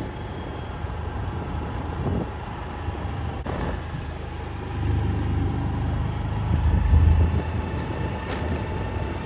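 A motor vehicle's engine running steadily, a low rumble that grows louder about five seconds in and again near seven seconds.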